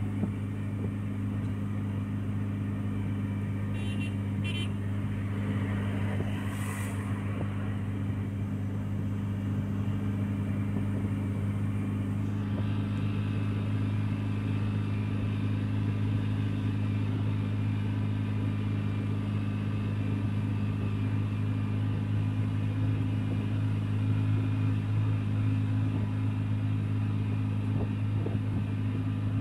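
Steady engine drone of a Tata Magic shared van, heard from inside its passenger cabin as it drives along the highway, with road and wind hiss on top. A few light clicks come about four to seven seconds in.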